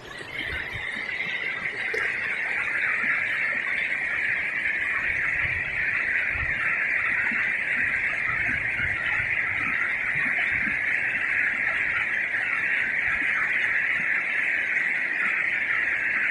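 A steady, high-pitched chorus of animal calls that swells in over the first couple of seconds and then holds unchanged.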